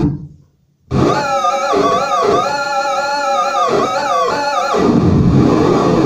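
Homemade analog synthesizer circuit sounding wavering electronic tones with a warbling vibrato. The pitch glides down and cuts out at the start, returns about a second in with repeated low downward swoops under it, and turns into a noisier buzz about five seconds in.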